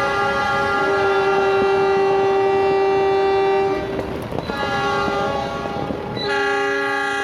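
Several diesel locomotive air horns sound together in long, overlapping chord blasts. The horns drop away briefly about four seconds in, then sound again, with a fresh loud blast about six seconds in.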